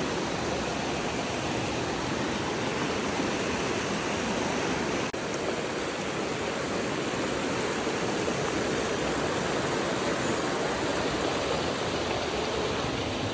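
Waterfall rushing steadily, with a faint tick about five seconds in.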